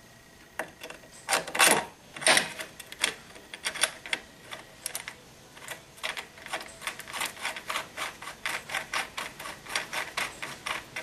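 Ratcheting wrench clicking as a bolt is cranked hard into a hole threaded only halfway in an aluminium frame. Two longer, louder strokes come about one and a half and two and a half seconds in, then a steady run of short clicks, about three a second.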